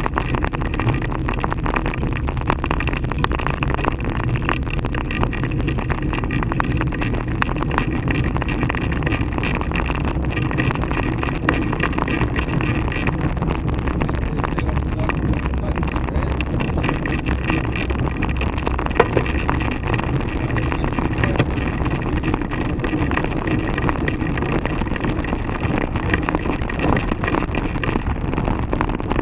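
Handcycle rolling along a paved road, heard from a camera mounted on its frame: steady tyre and road rumble with wind on the microphone and fine rattles throughout, and one sharper knock about two-thirds of the way through.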